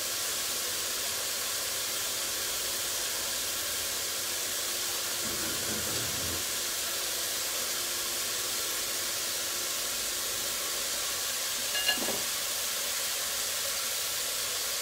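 Mushrooms frying over a very high flame: a steady sizzling hiss, cooked hot and fast so they don't release their water. One brief clink about twelve seconds in.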